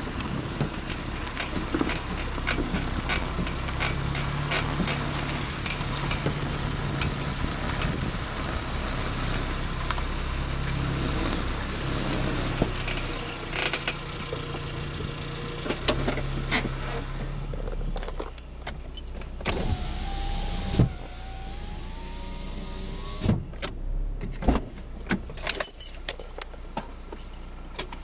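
Honda car's engine running, heard up close beside the front wheel: a steady low hum with irregular sharp knocks over it, the knocking noise the car is making. After about eighteen seconds it falls quieter, with a few loud clunks and a short wavering whine.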